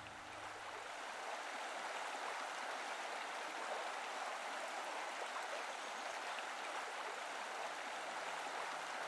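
Steady rushing of flowing water, like a stream.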